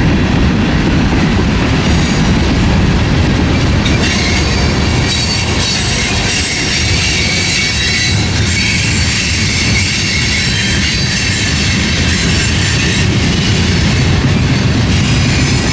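Norfolk Southern freight cars rolling past close by: a steady rumble of steel wheels on rail, with a high-pitched wheel squeal setting in about four seconds in and carrying on.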